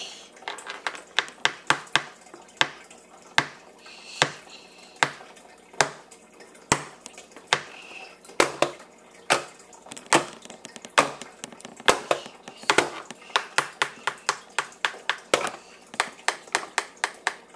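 Hard plastic clicks and knocks, irregular, two or three a second: a plastic toy dinosaur and small plastic game pieces tapping and knocking on a plastic high-chair tray.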